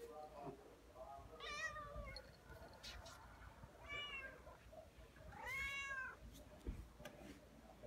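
Tabby cat meowing three times, the last call the longest, rising and then falling in pitch: the cat is begging to be let outside.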